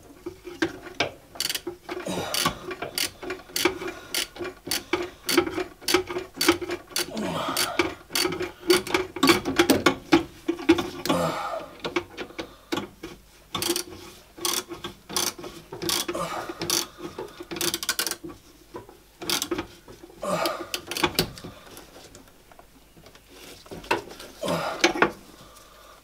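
Irregular clicks, taps and knocks of hand tools and metal parts being worked, with a faint steady hum underneath that stops about twenty seconds in.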